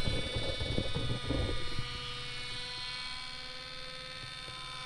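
Minn Kota Ultrex trolling motor running out of the water with the prop off: a steady electric hum with many tones. The motor housing is being turned by hand to find its quietest running position. Handling knocks and rattles over it in the first two seconds, then it runs evenly.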